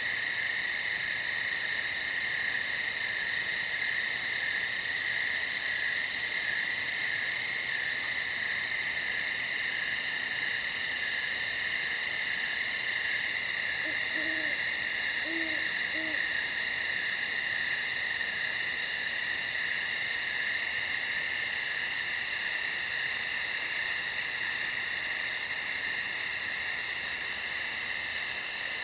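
Night ambience: a steady, dense insect chorus with a rapid, high pulsing trill over it. An owl hoots three times about halfway through.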